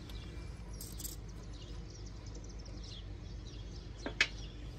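Small birds chirping faintly in short calls over a low steady background hum, with a single sharp click about four seconds in.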